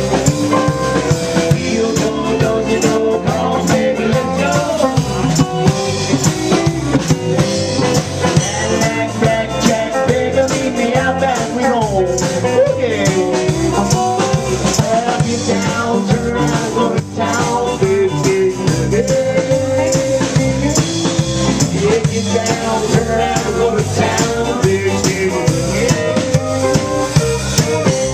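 A band playing a song with a drum kit keeping a steady beat under guitar and other pitched instruments.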